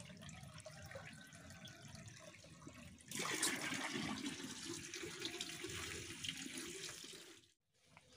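Water running and splashing as a small concrete catfish pond is drained. It grows louder about three seconds in and cuts out briefly near the end.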